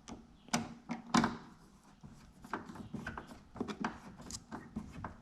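Irregular small clicks, taps and knocks of a truck side mirror and its mounting hardware being handled and fitted by hand, with two louder knocks within the first second and a half.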